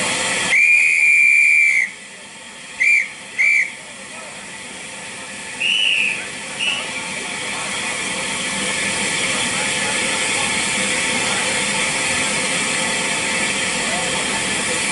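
Steam locomotive whistle: one long single-note blast, then two short toots, then two fainter whistles a few seconds later. After that a steady hiss of steam builds up over a few seconds and holds.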